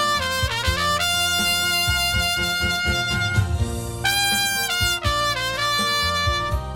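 Trumpet playing a slow melody in long held notes joined by short slurred turns, played without a microphone, over backing music with bass and a drum beat.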